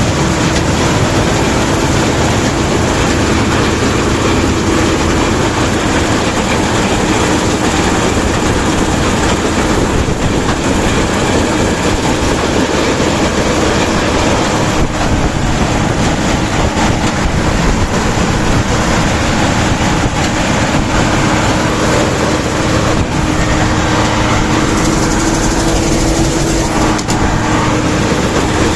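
Bizon Z056 Super combine harvester running steadily under load while cutting wheat, heard from the operator's seat. Its diesel engine and threshing machinery make a loud, constant noise with a steady tone running through it.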